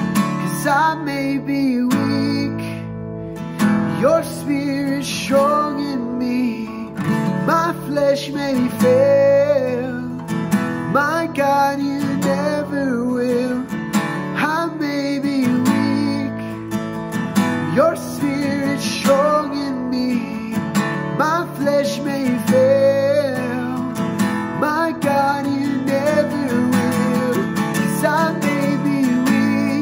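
Takamine acoustic guitar strummed in a steady worship-song accompaniment, with a man singing a slow melody over it.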